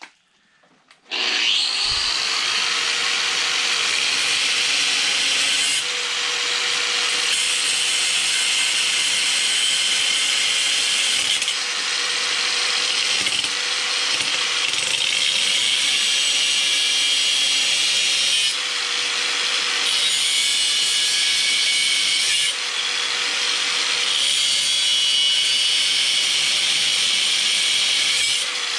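Makita variable-speed angle grinder with a flap disc starting up about a second in, then grinding steel with a steady motor whine under a harsh rasp that eases off briefly several times as the pressure on the work changes.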